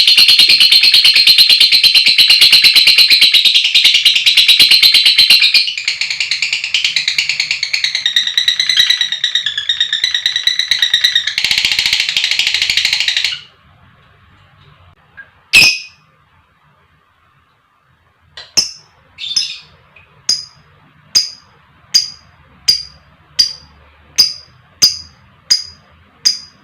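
Lovebird giving a long, very rapid, high-pitched chattering trill (ngekek) that cuts off abruptly about halfway through. After a short pause come one sharp call and then a steady series of short chirps, a little more than one a second.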